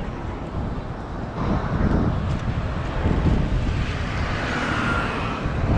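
Road traffic passing on a bridge, a steady rumble that grows louder about a second and a half in.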